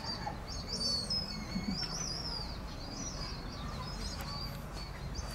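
Small birds chirping and twittering continuously, many quick, high, thin calls one after another over a steady low background hum.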